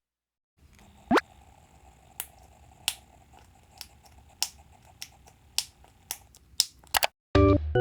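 Sharp single pops of a homemade pop-it fidget made from a capsule pill blister pack being pressed, a dozen or so, coming quicker toward the end. A short rising swish comes about a second in, and music starts near the end.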